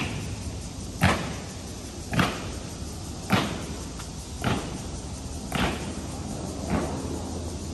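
Honor guards' boots striking the stone steps in unison at a slow ceremonial march: one sharp step about every second, seven in all, growing fainter as the squad moves away.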